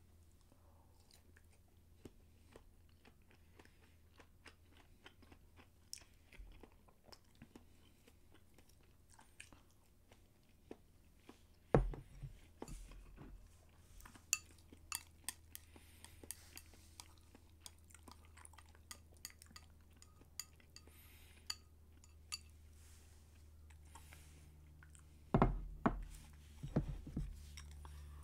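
A person chewing food, with soft crunches and many small mouth clicks, and a few louder knocks of dishes and chopsticks about twelve seconds in and again near the end.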